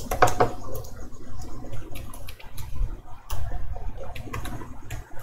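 Computer keyboard typing: scattered, irregular key clicks over a low steady rumble.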